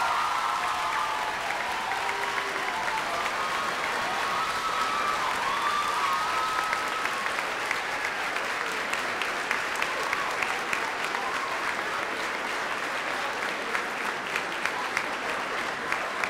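A large audience applauding steadily, loudest at the very start.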